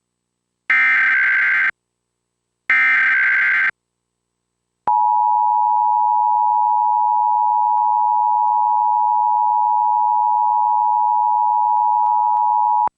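Emergency Alert System broadcast: two one-second bursts of the digital SAME header, a harsh buzzing data sound about a second apart. About five seconds in comes the EAS two-tone attention signal, a steady dual tone that holds for about eight seconds and cuts off.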